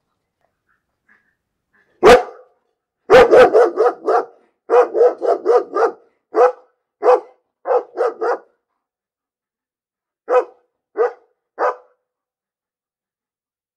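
A dog barking. One bark comes about two seconds in, then a fast run of barks, about five a second, for roughly three seconds. More barks follow, spaced out, and after a pause there are three last barks.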